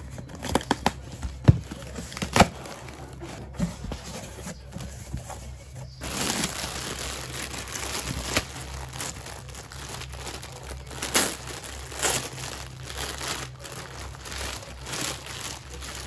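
A cardboard box being opened: its tape strip is pulled off and the flaps handled, giving sharp snaps and knocks. About six seconds in this gives way to continuous crinkling and rustling of clear plastic packaging bags as clothes are taken out.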